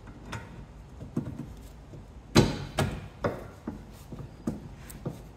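Rear brake caliper being handled and fitted back over the brake disc: a string of short, sharp knocks and clunks, the loudest about two and a half seconds in.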